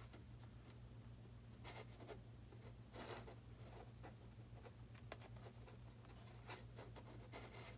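Near silence: faint, scattered scratching and light clicks of hands working on the model, over a steady low hum.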